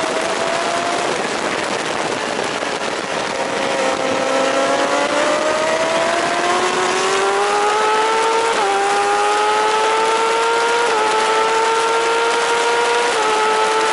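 1000 cc racing superbike engine heard from onboard under heavy wind noise. It runs low through a corner, then accelerates hard from about four seconds in, the note rising and dropping back sharply at three upshifts.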